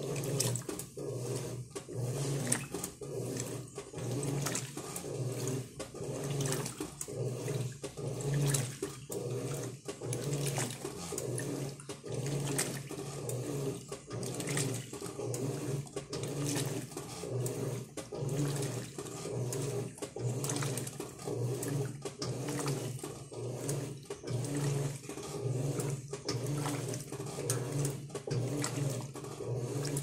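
Electrolux LM08 8 kg top-loading washing machine agitating a wet load: motor hum and the agitator's back-and-forth strokes churning the laundry through the water, in a steady rhythm of about one stroke a second.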